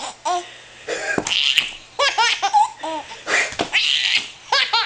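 A baby belly-laughing in runs of short, bouncing laughs, set off by a woman's pretend sneezes. Two breathy, hissy sneeze-like bursts come about a second in and again past the three-second mark.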